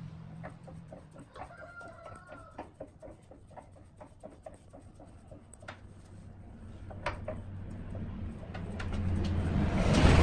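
Scattered light knocks and clicks as a rough log is handled and fitted between the centres of a wood lathe, with a brief bird call about a second and a half in. Near the end a low hum with a rushing noise builds up and becomes loud.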